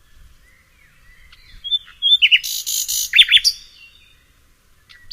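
Small birds chirping: faint at first, then about two seconds in a quick run of short falling chirps and a buzzy trill, before it goes quiet again.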